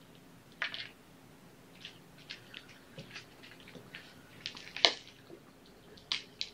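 Kittens playing at a small cardboard box of toys make light, scattered rustles and taps, with a sharper clatter about five seconds in and another just before the end.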